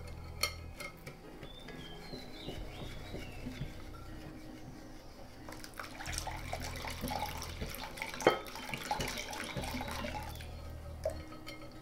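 Whisk stirring and tapping against a glass bowl as water is poured in a thin stream from a glass measuring jug into rice-flour batter, a soft wet mixing and trickling sound with scattered small clicks of the whisk on the glass.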